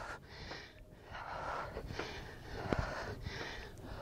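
A woman breathing hard from exertion, about five noisy breaths in and out at an even pace.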